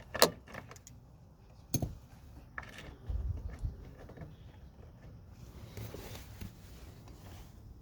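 Handling of a deep socket and the removed door jamb plunger switch: a sharp metallic click just after the start and another a little under two seconds in, a low thud around three seconds in, and light clinking and rustle.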